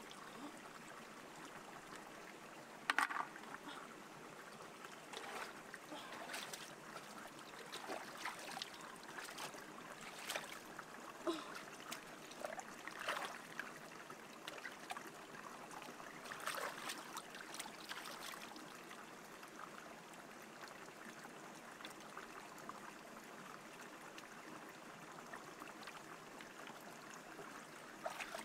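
Shallow rocky stream trickling steadily, with scattered splashes and sloshes as hands and bare feet move through the water; the sharpest splash comes about three seconds in.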